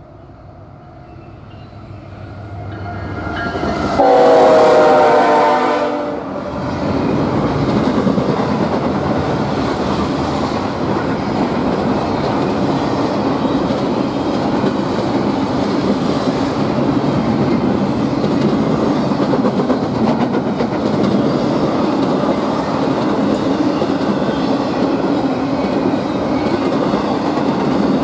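Eastbound BNSF intermodal train approaching and passing. The lead locomotive's Nathan K5HL air horn sounds loudest from about four to six seconds in, dropping slightly in pitch as it goes by. Then comes the steady rumble and clickety-clack of double-stack container cars rolling past.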